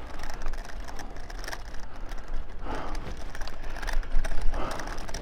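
Bicycle ride noise: wind rumbling on the microphone and road noise, with light mechanical ticking and rattling from the bike.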